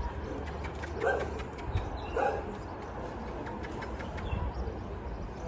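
A dog gives two short barks, about a second in and again about a second later, over a low steady background rumble.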